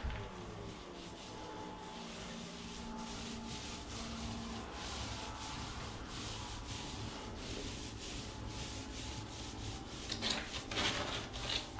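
Paint roller spreading epoxy primer, a scratchy rubbing in repeated back-and-forth strokes that grows a little louder near the end.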